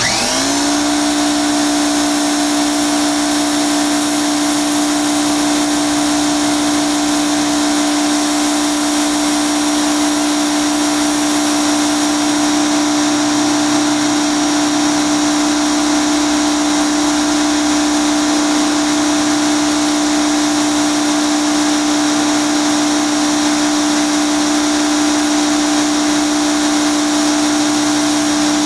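A pressure washer switches on abruptly and runs steadily. It gives a constant hum, with the hiss of its high-pressure water jet spraying a wooden porch deck, and its pitch settles within the first half second.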